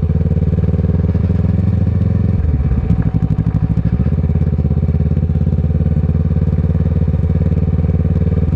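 Kawasaki ER-6n's parallel-twin engine, through an aftermarket Scorpion exhaust, running at low, steady revs. About two and a half seconds in, the note drops and wavers for a second or so, with a knock, then settles back to the same steady pull.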